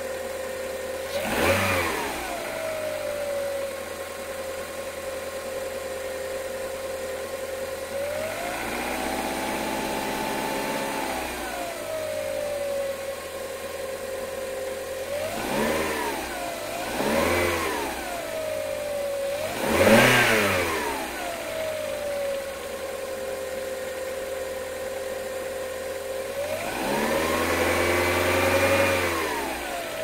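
1999 VW Lupo 1.0 four-cylinder petrol engine idling steadily and being revved. There is a quick blip about a second in, then a rise in revs held for a few seconds, then two short blips. A sharper blip, the loudest, comes about two-thirds of the way through, and a longer held rev comes near the end.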